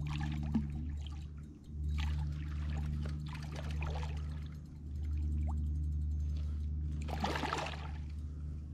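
Water splashing and trickling in three short spells, the last and loudest near the end, over a steady low hum.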